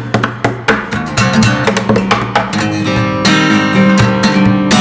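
Acoustic guitar played fingerstyle: a quick picked melody over sustained bass notes, with many plucked notes in succession.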